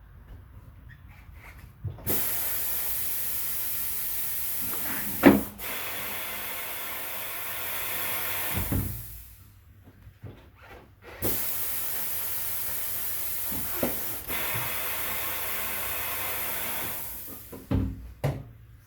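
Compressed air hissing in two long spells of several seconds each, with a sharp clack about five seconds in.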